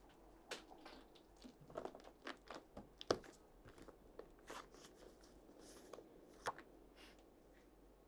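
A bag being searched by hand: faint, irregular rustles and small clicks, the sharpest about three seconds in.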